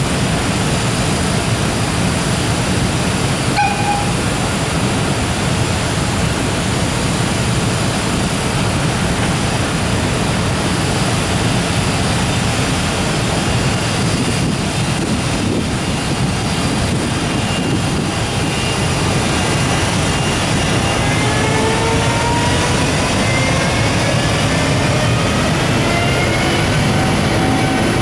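Container freight train hauled by an EF510 electric locomotive pulling out: a steady loud rolling noise, and from about two-thirds of the way in a set of rising whines from the locomotive's inverter motor drive as the train gathers speed.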